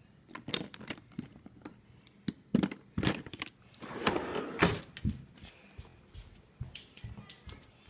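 Irregular knocks, clicks and rustling of things being handled and moved about, with several sharper thunks in the middle.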